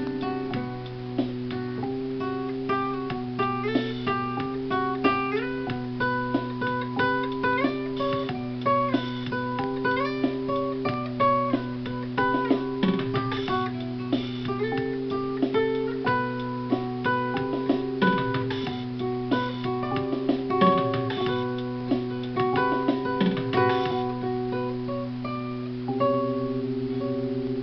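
Acoustic guitar played solo: a picked melody of quick single notes over steady low tones, with a louder strummed chord struck near the end.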